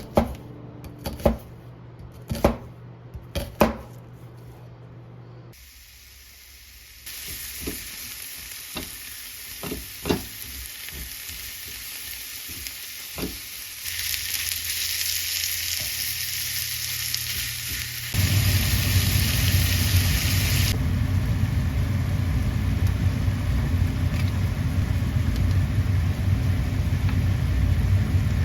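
A few sharp knocks, then food sizzling in a frying pan, which steps louder partway through. About two-thirds of the way in, a loud low rumble takes over.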